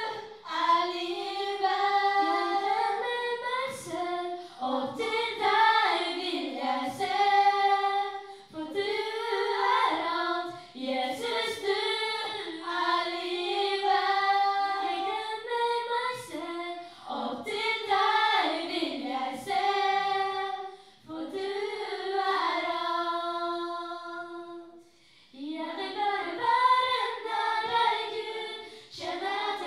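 A small group of young women singing together into handheld microphones, amplified through a PA, in long phrases with held notes. The singing breaks off briefly about two-thirds of the way through, then starts again.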